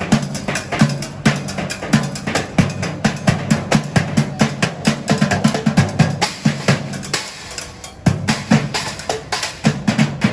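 Background music driven by a drum kit with a steady beat of kick and snare, the drums dropping out briefly about three-quarters of the way through.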